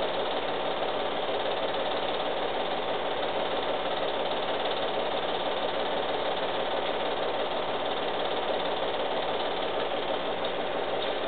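Film projector running, a steady mechanical whir and rapid clatter with no break.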